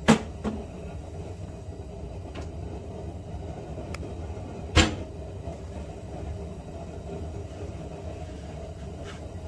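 Honda Odyssey front blower motor running with a steady low hum, its bushings freshly flushed with degreaser. Two sharp knocks cut across it, one right at the start and one about five seconds in, with a few fainter clicks between.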